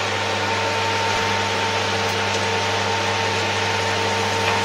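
Sel roti batter sizzling steadily in hot oil in a frying pan, over a constant electrical hum.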